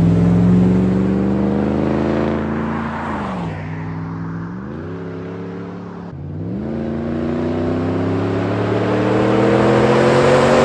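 Ram 1500 Hemi V8 pickup accelerating hard past and along the road. The engine note climbs steadily and drops sharply at each upshift, twice, and is quieter in the middle and louder again as the truck comes back toward the listener.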